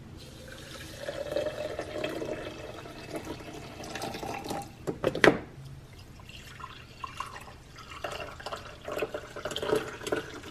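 Hot water poured from a glass kettle onto coffee grounds in a glass French press, the pitch of the filling rising as it goes, then brewed coffee poured from the press into a ceramic mug. A single sharp knock about five seconds in is the loudest sound.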